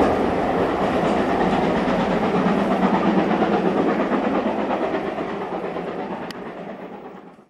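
Steam train running past on the line, its wheels rumbling and clattering on the rails; the sound fades away towards the end.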